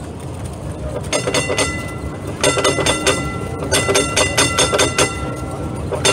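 Heritage tram's warning bell rung in quick repeated strokes, in several bursts about a second in, near the middle and again at the end, to clear pedestrians off the track. It rings over the low rumble of the tram running.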